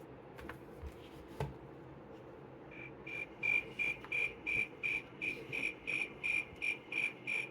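Recorded cricket chirping played from a children's sound book's button, a regular series of short high chirps about three a second that starts about three seconds in. Before it there are a couple of soft clicks from handling the book.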